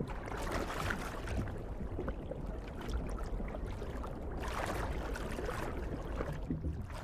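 Underwater water ambience: a steady low rumble with swishing, gurgling water noise that swells twice.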